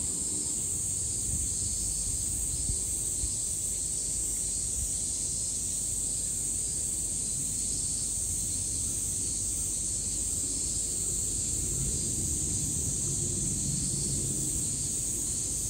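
Steady outdoor ambience: wind rumbling on the microphone under a steady high hiss, with no distinct events.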